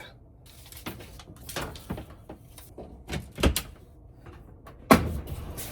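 A few clicks and knocks as the washing machine is set going, then near the end a sudden steady rush of water as the washer starts to fill.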